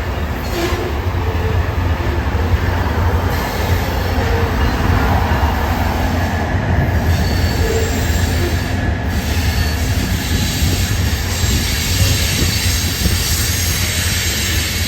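A CSX freight train's cars rolling past with a steady low rumble, with faint high-pitched wheel squeal over it, mostly in the second half.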